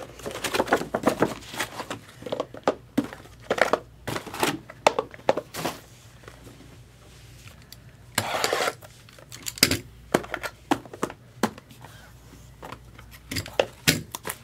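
Plastic wrapping on trading-card boxes crinkling and tearing as it is handled: a run of short rustles and snaps, with a longer rustle about eight seconds in.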